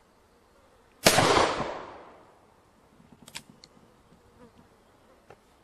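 A single shot from a .44-calibre black-powder percussion revolver firing a paper-cartridge load, about a second in, its report ringing away over about a second. A few faint sharp mechanical clicks follow.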